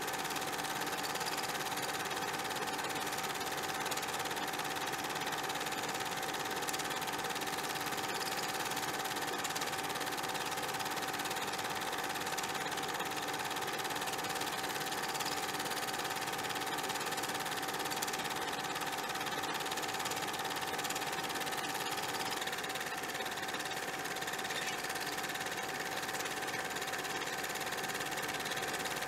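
A steady machine-like whirring drone over hiss, unbroken, its tone shifting slightly about two-thirds of the way through.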